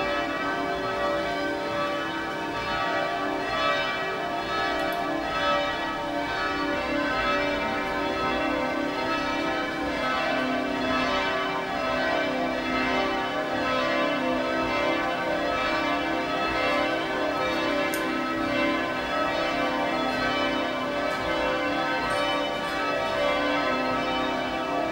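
Several electrically rung church bells swinging together in a full, continuous peal, their overlapping strikes and ringing tones unbroken throughout.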